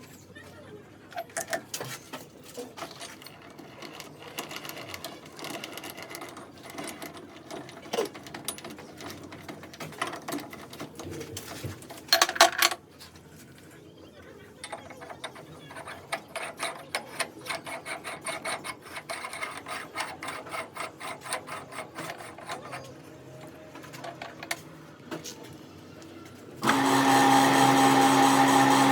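Metal workshop work: a long run of quick light clicks and taps with a short loud burst about halfway. Near the end a motor-driven power tool starts and runs steadily.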